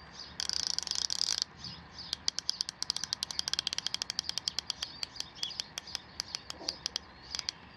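Tekton 8-inch 90-tooth 3/8-inch-drive ratchet clicking as it is swung: a fast run of clicks for about a second, then a steadier series of fine clicks, about seven or eight a second, for some five seconds. The close spacing of the clicks comes from the 90-tooth mechanism's 4-degree arc swing.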